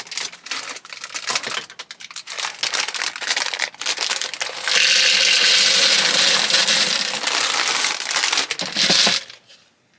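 Plastic pasta bag crinkling and rustling with many small clicks, then dry pasta pouring from the bag into a plastic measuring jug as a steady rattling hiss for about four and a half seconds, stopping about nine seconds in.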